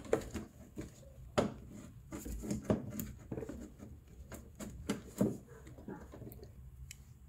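Plastic EVAP charcoal vapor canister being twisted and pulled by hand in its loosened bracket: scattered light knocks and clicks, about half a dozen.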